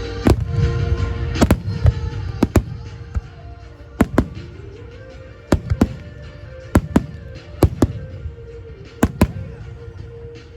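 Fireworks going off in a dozen or more sharp bangs, many in quick pairs, over music playing on a loudspeaker system.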